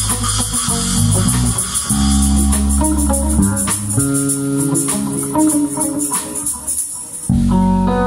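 Small live rock band playing: electric guitar, bass guitar and drums with cymbals keeping a steady beat. Near the end the bass and drums thin out for about a second, then the whole band comes back in together.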